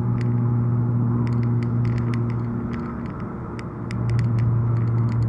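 Car cruising at about 130 km/h, heard from inside the cabin through a dashcam: a steady engine and road hum that eases for a moment about three seconds in and then comes back, with scattered light clicks.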